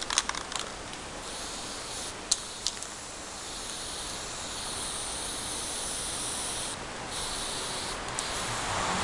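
Aerosol spray-paint can hissing as it sprays: one long spray of about five seconds, then a short one, with a few sharp clicks near the start.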